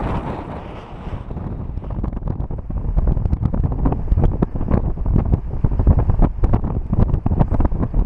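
Strong wind buffeting the microphone: a heavy low rumble with rapid crackling gusts that grow stronger about three seconds in.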